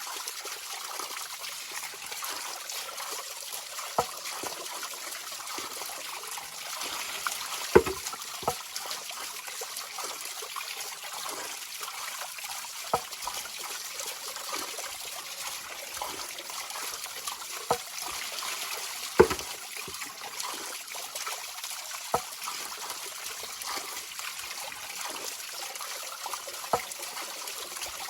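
River water trickling and babbling over rocks, a steady rushing hiss. Sharp splashes cut through it every few seconds, the loudest about eight seconds in and again near nineteen seconds.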